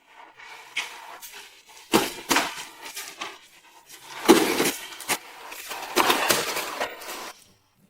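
Nerf blasters firing foam darts: a string of irregular sharp clacks and knocks, loudest about two, four and six seconds in, stopping shortly before the end.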